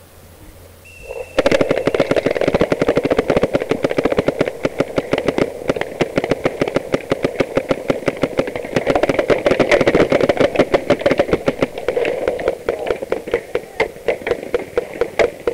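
Paintball markers firing rapid strings of shots, a dense stream of sharp pops about ten a second that starts about a second in and keeps going.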